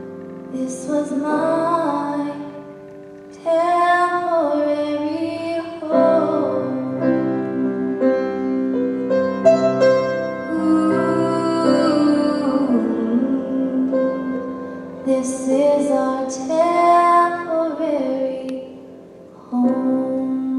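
A female vocalist singing a slow ballad into a microphone, in sung phrases with short breaks, accompanied by a grand piano.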